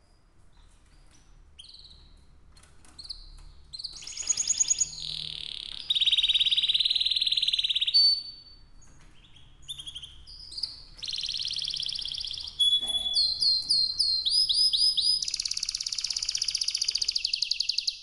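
Domestic canary singing. A few soft chirps give way, about four seconds in, to a song of fast high trills. After a short pause come more trills, a run of quick swooping notes repeated several times, and a long rolling trill at the end.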